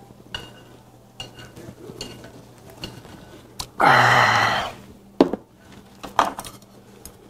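A man's loud, drawn-out "ahh" of satisfaction after gulping down a glass of beer, about four seconds in. Sharp clinks of glass and tableware follow.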